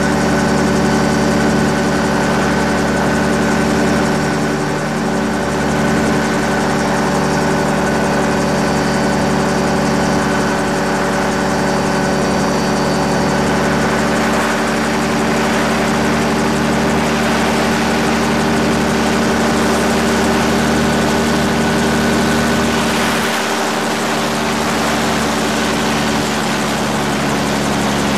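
AC-4 gyrocopter's Rotax 532 two-stroke twin engine and propeller running steadily in flight, heard on board as an even, unbroken drone.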